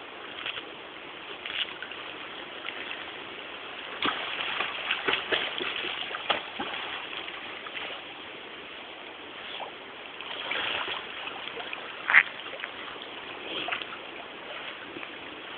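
Dog splashing about in water over an even background hiss, with a busier run of splashes from about four to seven seconds in and one sharp, loud splash about twelve seconds in.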